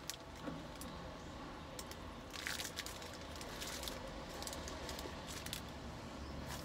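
A man chewing a mouthful of McDonald's teriyaki burger, with the yellow paper wrapper crinkling in his hands now and then, most clearly about two and a half seconds in.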